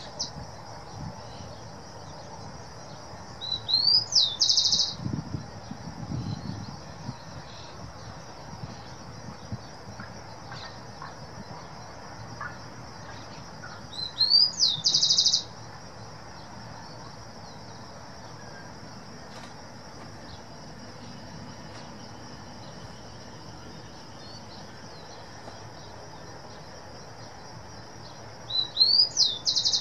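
A songbird singing three times, each song a short rising note followed by a fast trill, over a steady high insect buzz. A faint low rumble sits underneath from a freight train of covered hopper wagons rolling by in the distance.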